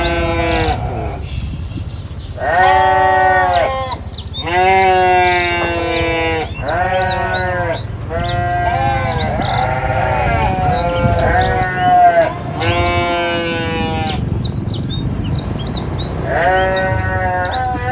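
A flock bleating: long, wavering bleats come one after another, about eight in all, some overlapping in the middle. Short high chirps run over the top.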